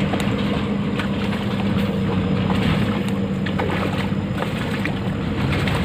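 Steady rush of river water with a low steady hum underneath, and scattered light drips and splashes as a lift net is raised out of the water.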